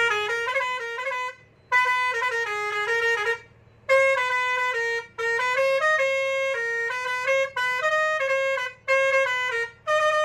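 Bajrang multi-tune musical truck horn (40 tunes) playing melodies of stepped notes in short phrases, each about one to two seconds long with brief breaks between them, as its buttons are pressed.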